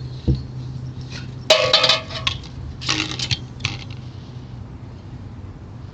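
Two short bursts of metallic jingling and clinking, about a second and a half in and again about three seconds in, over a steady low hum.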